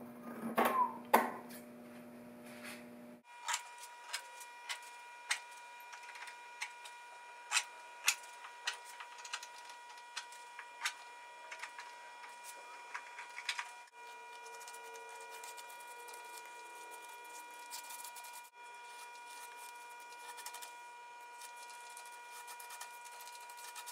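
Scissors snipping through screen mesh in a run of short, sharp cuts, sparser after about fourteen seconds, over a faint steady high hum.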